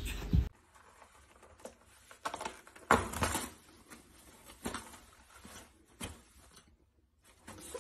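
A steady hum cuts off suddenly about half a second in. After it comes soft paper rustling, crinkling and tearing as a kitten bats and claws at a hanging toilet paper roll: scattered short scratches and crackles, loudest about three seconds in.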